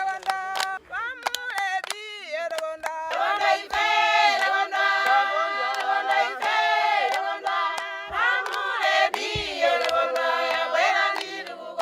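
A group of voices singing together in chorus, with short sharp strikes sounding throughout.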